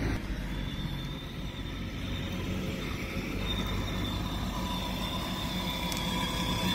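Children's battery-powered ride-on toy car driving on asphalt: a steady whine from its electric drive motors and gears over the rumble of its plastic wheels, getting a little louder near the end as it comes closer.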